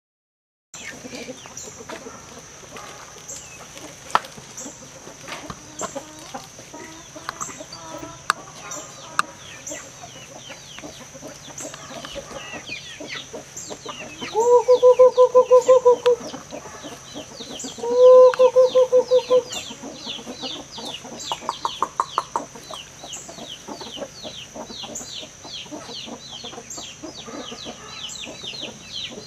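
Chickens clucking in a backyard coop, with two loud, drawn-out pulsing calls about halfway through and a weaker one shortly after, over steady fast high chirping in the background. The sound starts about a second in, after a moment of silence.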